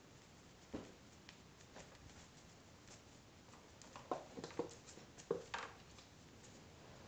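Cat's paws and claws knocking and scrabbling on a hardwood floor as it pounces at a dangled string toy: one knock a little under a second in, then a quick flurry of taps and knocks between about four and six seconds in.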